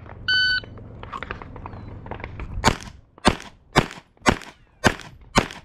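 Shot timer start beep, a short steady electronic tone about a third of a second in. From about halfway through, six shots from a Glock 34 9mm pistol, roughly half a second apart.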